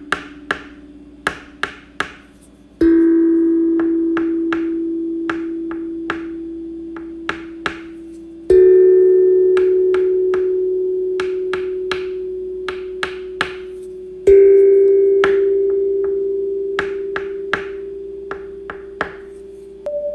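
Sharp wood-block-like clicks at about two a second, with a ringing chime struck four times, every five to six seconds, each one a step higher in pitch and fading slowly.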